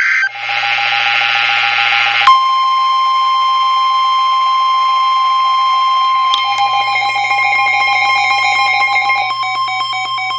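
NOAA Weather Radio emergency alert: the end of the harsh buzzing SAME digital header data. About two seconds in, with a click, it switches to the steady single-pitch warning alarm tone, which holds, announcing a new severe thunderstorm warning.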